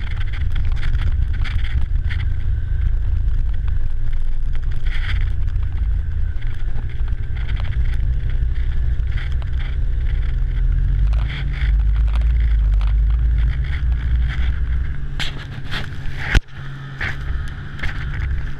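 Engine of the small vehicle towing the sled, running steadily with a loud low rumble. A single sharp knock sounds about 16 seconds in.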